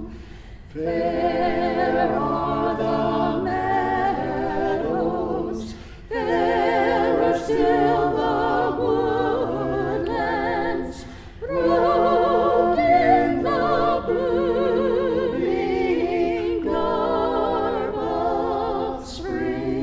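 A choir singing a hymn, the voices wavering with vibrato, in phrases of about five seconds with short breaks between them.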